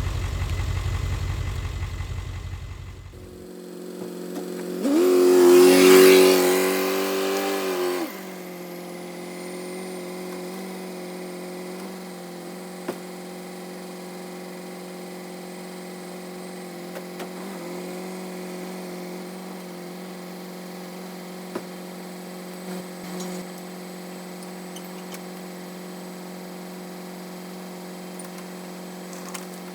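A 7.3 L Powerstroke diesel engine in a Ford F350 pulls away. It revs up, with pitch rising, loudest a few seconds in, then settles into a steady, even drone while the truck drives on.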